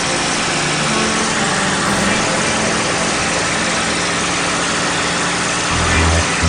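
Cockpit noise of a P-51 Mustang in flight: its Packard Merlin V-12 engine and the wind rush, a loud, steady, dense noise with a low drone under it. Near the end, music with a heavy bass beat comes in.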